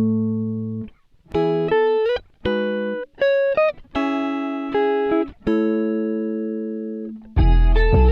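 Background music: a melody of plucked, guitar-like notes and chords, each ringing and fading, with a louder, fuller passage with deep bass coming in near the end.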